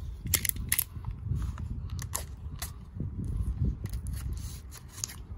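Utility knife cutting open a stiff plastic blister pack: irregular sharp clicks and crackles of the plastic as the blade works through it.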